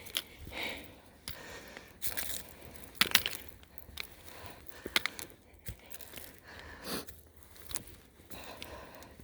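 Footsteps crunching and scraping on a rocky trail, an irregular step about once a second, with the climber's hard breathing between them.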